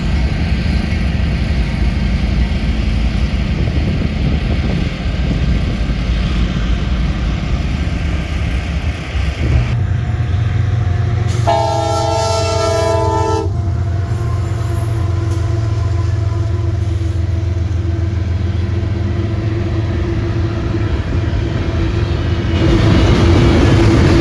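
A train running with a steady low rumble. Its horn blows once near the middle, a chord of several tones held for about two seconds.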